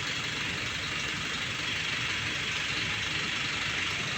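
An engine running steadily at idle, a low even hum with a steady hiss above it.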